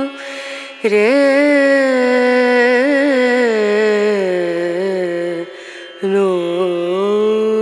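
Music: a single voice singing long, held notes that glide slowly in pitch, in a chant-like style. The singing breaks off briefly just under a second in and again about five and a half seconds in.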